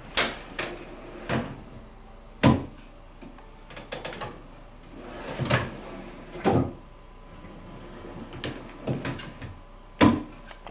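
Wooden cabinet drawers on full-extension roller-bearing metal glides being pulled open and pushed shut several times. A series of sharp knocks as the drawers stop and close, about eight loud ones with lighter clicks and short sliding sounds between them; the loudest knocks come at the start, about two and a half seconds in, and near the end.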